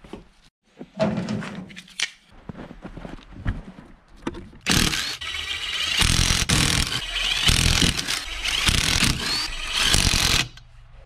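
Cordless impact wrench hammering lug nuts off a steel car wheel: a loud, steady rattle of about six seconds with a few brief breaks, which starts about halfway through and stops shortly before the end. Before it come scattered knocks and rustling.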